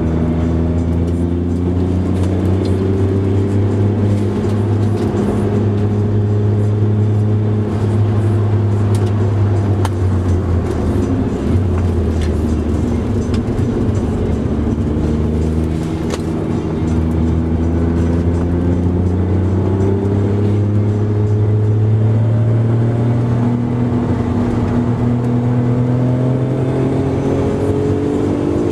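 Car engine heard from inside the cabin at track speed, revs climbing in long rising sweeps and dropping back between them, with short lifts off the throttle about eleven and sixteen seconds in.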